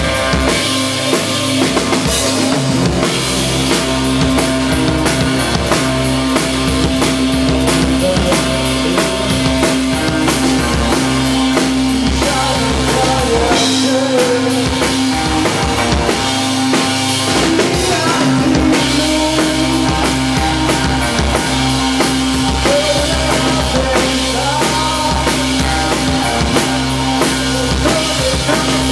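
Live band playing, the drum kit driving a steady beat with bass drum hits throughout.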